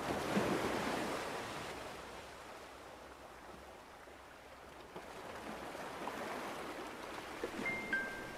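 Ocean surf washing onto a beach, swelling at the start and again toward the end, with two brief high tones near the end.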